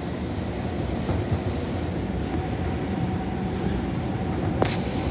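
R142 subway car running through a tunnel, heard from inside the car: a steady, loud rumble of wheels on rail, with one sharp click about four and a half seconds in.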